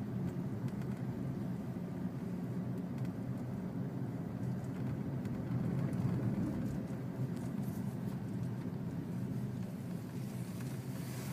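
Steady low hum of a car's engine and tyres heard from inside the cabin as the car drives slowly.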